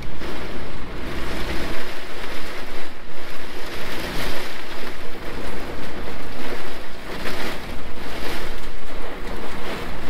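Storm wind gusting over a phone's microphone: a loud rushing noise that swells and fades every second or so over a low buffeting rumble.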